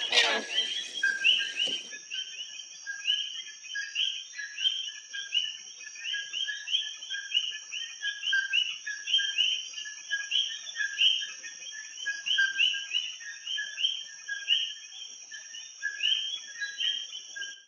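A chorus of short chirping calls, repeating evenly about two or three times a second, over a steady high-pitched whine. The sound stops abruptly at the end.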